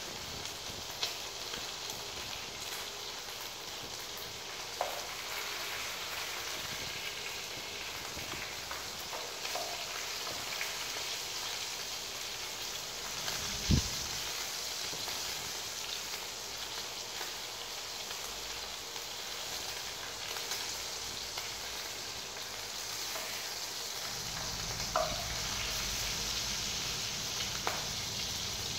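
Food frying in a non-stick pan on a portable gas stove: a steady sizzle as it is stirred with a spatula, with a few sharp knocks of the spatula against the pan, the loudest about halfway through.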